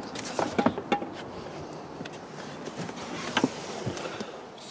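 Handling noise and rustling of a person climbing into a car's driver's seat, with several light knocks about half a second to one second in and again near the end.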